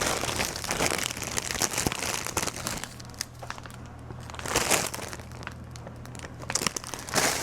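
Bags crinkling and rustling as bundles of wool are handled and pulled out of them. The rustle is busiest in the first few seconds and flares up again briefly midway and near the end.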